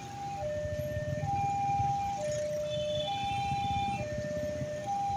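Railway level-crossing warning alarm sounding a two-tone hi-lo signal, each tone held about a second, over a low rumble of engines.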